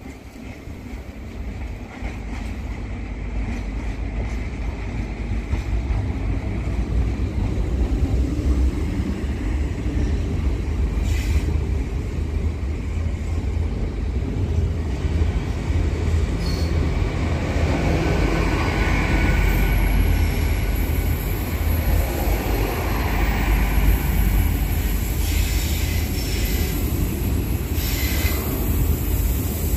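GWR Class 800 bi-mode train rolling slowly past at close range: a low rumble that grows louder over the first several seconds as it draws near, then holds steady, with a faint high squeal from the train about two-thirds of the way through.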